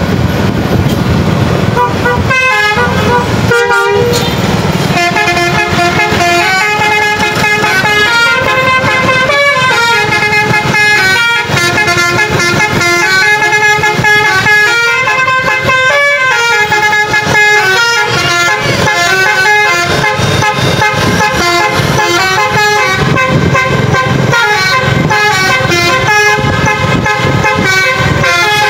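A tour bus's basuri musical air horn playing a tune of held notes that step up and down in pitch, loud and almost without pause, with a couple of short breaks a few seconds in.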